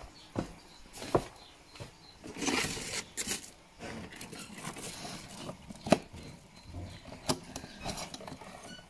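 Plastic bottles and containers being handled and moved about: scattered light knocks and clicks, the sharpest about six seconds in, with a stretch of rustling near three seconds.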